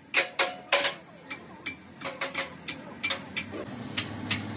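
Sharp knocks with a short metallic ring, three or four a second at first and fewer in the middle. A low hum comes in about three and a half seconds in.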